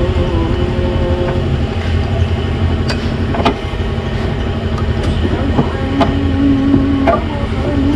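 A steady low rumble with sharp metallic clicks and knocks scattered through it, from hands working the drive belt and pulleys of an engine that is switched off. A droning tone joins the rumble about two-thirds of the way in.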